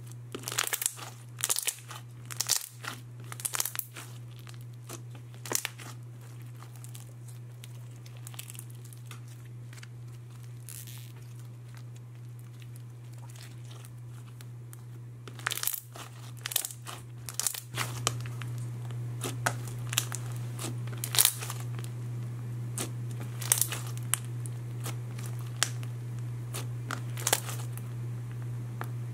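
Thick floam slime full of small foam beads being squished and pressed by hand, giving off scattered clicking, crackling bubble pops in clusters with a quieter stretch in the middle. The slime is stiff, which the maker takes for slightly overactivated. A steady low hum runs underneath and grows louder about two thirds of the way through.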